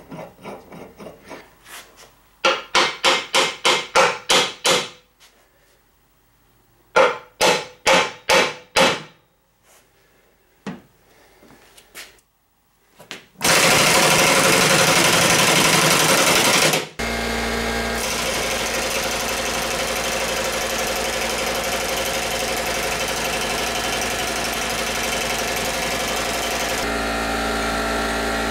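Pneumatic impact wrench hammering for about three seconds, driving the screw of a C-frame press to push a new ball joint into a lower control arm. Before it come two runs of sharp strikes, about four a second. After it a steady mechanical drone sets in.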